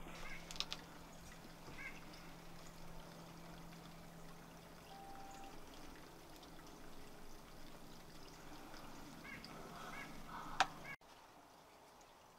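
Faint woodland ambience at dusk: a steady low hum with scattered distant bird calls. A sharp click comes near the start and a louder one near the end, and then the background drops away suddenly.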